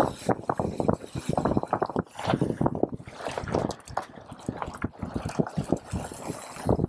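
Wind buffeting a moving camera's microphone, with an uneven rumble and clatter from a mountain bike being ridden over rough ground.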